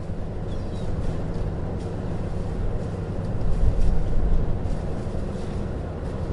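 Boat engine running with a steady low rumble that swells briefly in the middle, with faint knocks and clicks around it.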